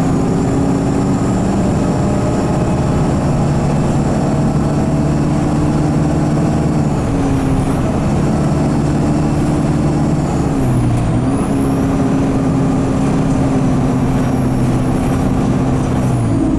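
Alexander Dennis Enviro200 bus's diesel engine running under way, heard from inside the bus, with a thin high-pitched turbo squeal that dips and recovers twice as the engine note changes. The gearbox is stuck in 2nd/3rd, so the engine is held in a low gear.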